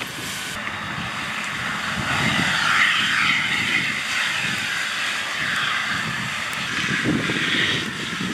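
Steady hiss of a fire hose's water spray striking a burning car and turning to steam, growing louder about two seconds in, over the low rumble of the fire engine and its pump running.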